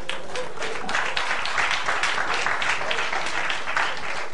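Audience applauding: dense, steady clapping from a theatre crowd.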